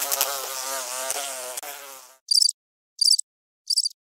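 Housefly buzzing with a wavering pitch, fading out about two seconds in. Then a cricket chirps three times, short high-pitched chirps about 0.7 seconds apart.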